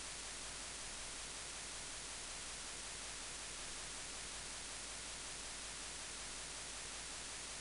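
Steady hiss of microphone static.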